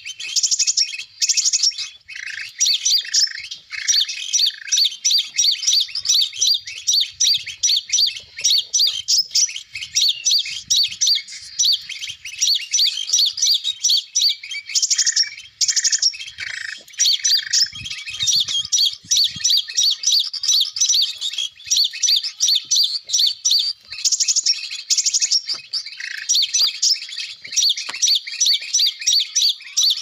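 Sogon bird calls in rapid, unbroken chirps: the recorded lure call played from an MP3 player to draw spiderhunters down to a sticky rod.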